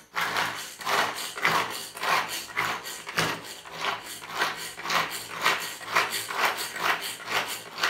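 Nova hand-operated pull-cord vegetable chopper being pulled over and over, about two pulls a second. Each pull is a whirring rasp as the cord spins the three blades through onion pieces in the plastic bowl.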